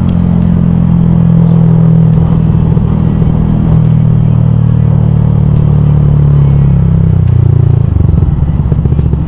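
Yamaha YZF R125's single-cylinder four-stroke engine running at steady revs under way. A little before the end the pitch drops and the exhaust note turns to a quick pulsing as the revs fall.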